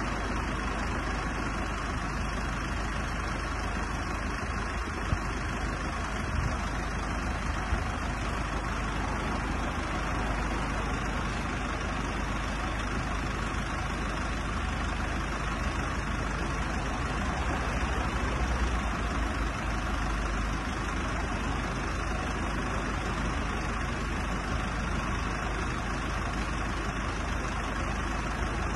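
Mercedes-Benz Sprinter 314 CDI's four-cylinder diesel engine idling steadily.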